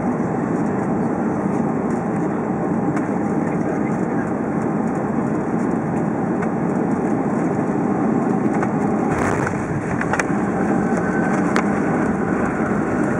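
Steady roar of engines and airflow inside the cabin of a Boeing 757 as it arrives. A brief jolt comes about nine seconds in, followed by a couple of sharp knocks.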